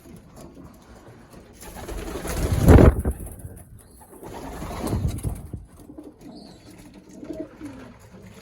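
Racing pigeons cooing in their loft, with a loud rushing noise that swells up about two seconds in and peaks just before three seconds, and a smaller one around five seconds.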